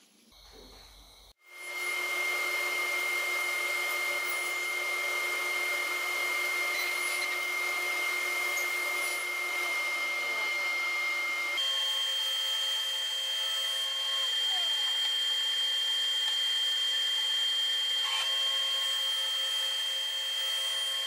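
Powermatic table saw running, a loud steady whine over a rushing noise. About halfway through, the whine jumps abruptly to a higher pitch.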